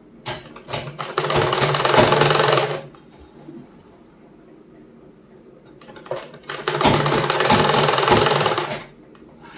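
Black domestic sewing machine stitching a seam through fabric in two runs. Each run starts with a few short stutters and then runs steadily for two to three seconds. The first run starts about half a second in, and the second about six seconds in.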